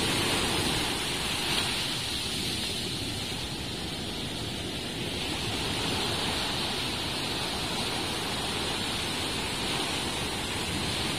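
Sea surf washing on the shore in a steady noisy rush, easing a little a couple of seconds in.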